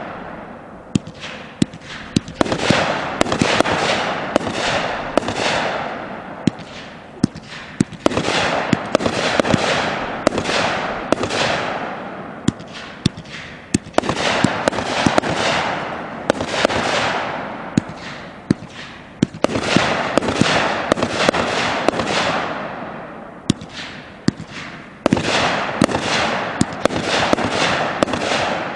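Planet X 'Quantum Realm' 500-gram, 35-shot firework cake firing shell after shell, about one every two seconds. Each shot is a sharp pop of lift and burst, followed by a hiss that dies away.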